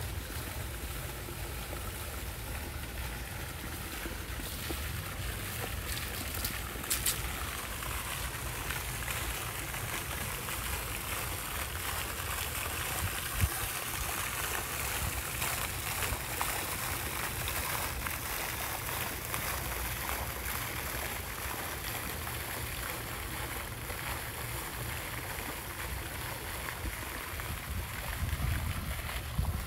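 A pond fountain's water jet splashing steadily back into the pond, with a low rumble underneath and one brief knock about halfway through.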